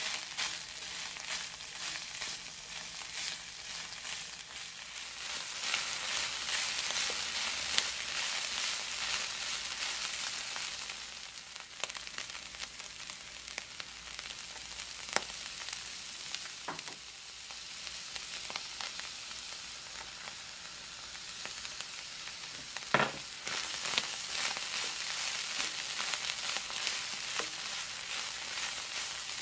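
Ground beef and diced onion sizzling as they fry in a nonstick pan and are stirred with a spatula; the sizzle grows louder about five seconds in and again near the end. A few sharp knocks stand out, the loudest about three-quarters of the way through.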